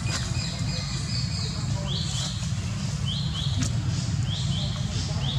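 Short high-pitched calls from an unseen animal, each rising then held briefly, repeating in pairs about once a second, over a steady low rumble.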